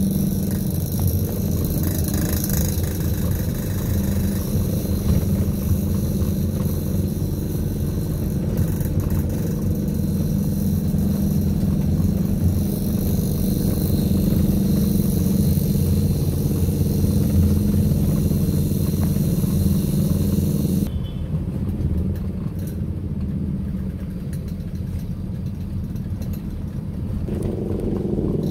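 Steady engine and road noise inside the cabin of a moving car, with a high hiss that drops away about three quarters of the way through. Near the end a pitched engine drone joins, from the motorcycles following close behind.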